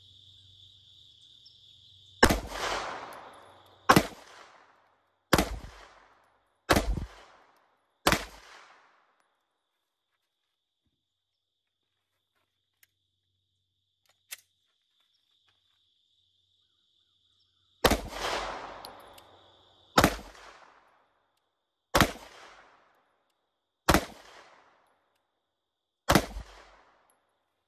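Ten 9mm pistol shots in two strings of five, each shot with a short echoing tail. First a Wilson Combat EDC X-9 fires about once every 1.5 seconds; after a pause of about ten seconds, a Gen 3 Glock 19 fires about once every 2 seconds. A steady high drone of crickets fills the gaps.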